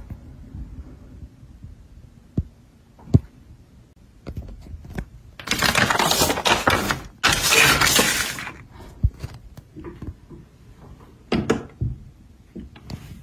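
Large folded paper leaflet being handled and unfolded, crinkling loudly twice in the middle, with scattered light taps and clicks of handling before and after.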